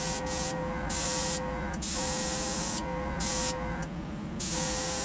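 Airbrush spraying paint in about four bursts of hiss as the trigger is pressed and released, over the steady hum of a small airbrush compressor running.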